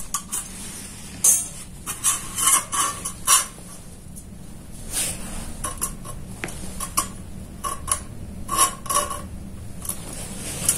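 Steel ruler and marking tool knocking and scraping on a steel plate while a line is marked out: irregular light metallic clinks, several with a brief ring.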